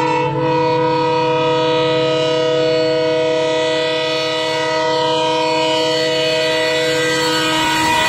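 Locomotive air horn of an approaching Indian express train, sounded non-stop as a loud, steady chord of several tones held without a break.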